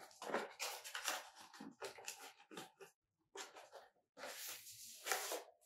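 Faint rustling and scraping of a small cardboard box and paper packaging being handled, in short irregular bursts with a longer stretch near the end.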